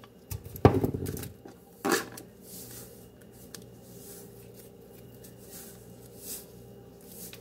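Pepper mill and salt shaker being worked over raw chicken breasts: a sharp knock less than a second in and another about two seconds in, then quiet, faint scattered ticks of grinding and shaking.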